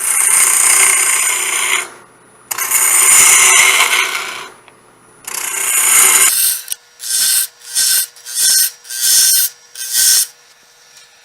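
A hand-held turning tool hollows out the inside of a wooden blank spinning on a wood lathe. It makes three longer cuts and then five short ones, each heard as a scraping hiss, with the lathe running quietly in between.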